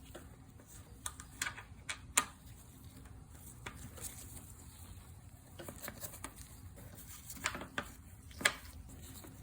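Scattered light clicks and knocks of hand tools working on the car's fasteners and plastic panels, about a dozen irregular taps with the sharpest near the middle and end.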